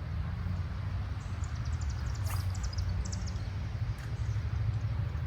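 Wind buffeting the microphone as a steady low rumble, with a bird's faint, rapid, high-pitched chirping in the middle and a single sharp click.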